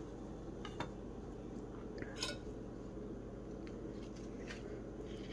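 Faint, soft handling sounds of a knife cutting and scooping the flesh of a ripe avocado half, with a few small clicks and scrapes.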